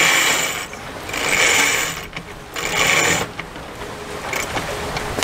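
A line being hauled in strong pulls through the deck hardware of a sailing catamaran, a ratcheting whirr with each pull, three pulls about a second and a half apart. A steadier hiss follows from just past halfway.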